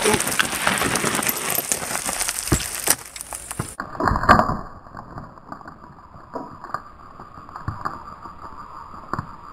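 A person falling and sliding down a steep bank of loose dirt and gravel: a few seconds of scraping and rattling soil and stones that stops abruptly, then a heavier thump about four seconds in as he lands, followed by scattered crunching steps on the gravel.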